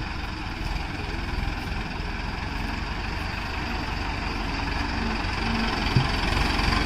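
Mahindra tractor's diesel engine running steadily at low revs, a little louder near the end, with a single sharp knock about six seconds in.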